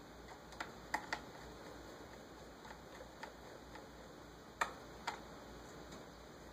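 Scattered sharp clicks and taps of laptop parts being handled during reassembly, about seven in all at uneven intervals, the loudest a little over a second in and past the middle.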